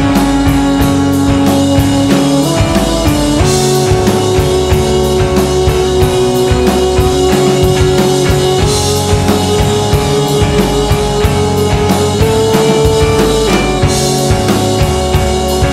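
Background music with a steady drum beat and long held melody notes that change pitch a few times.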